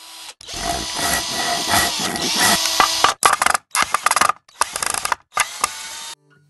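Mechanical sound effects for an animated intro: about three seconds of dense rattling, ratchet-like clatter, then four short chopped bursts, each cutting off suddenly.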